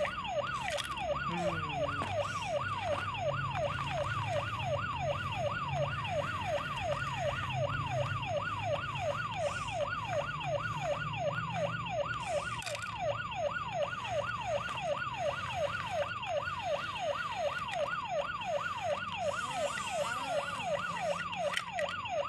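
Electronic siren sounding a rapid wail: one pitch falling from high to low and starting again about twice a second, without a break. A faint low hum runs underneath through the first half.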